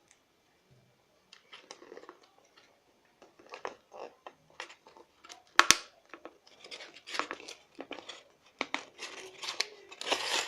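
Hands working with materials while building a small homemade fan: irregular scraping, crinkling and clicks, with one loud sharp click a little past halfway.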